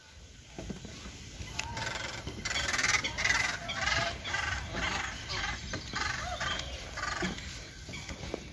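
A flock of Canada geese honking, many short calls repeating and overlapping, growing louder about two seconds in.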